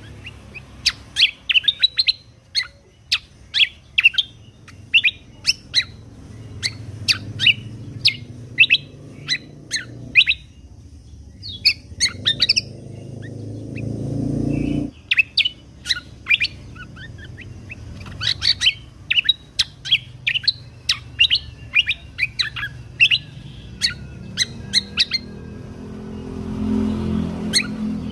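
Kecial kombok (cucak kombo) songbird singing in rapid strings of short, sharp, high chirps and trills, with a brief pause midway. A low rumble swells underneath, stopping abruptly about halfway through, and rises again near the end.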